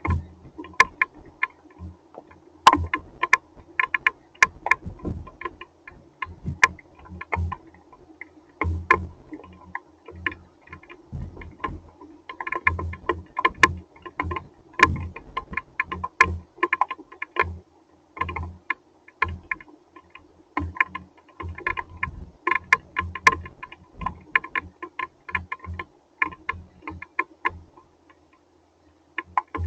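Hailstones striking a hard surface in an irregular, dense clatter of sharp clicks and heavier thuds over a steady low hum. The hits thin out and almost stop briefly near the end.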